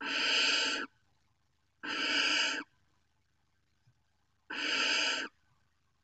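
Young barn owls in the nest giving three harsh, hissing calls, each under a second long and about two seconds apart: the snoring food-begging call of barn owl nestlings.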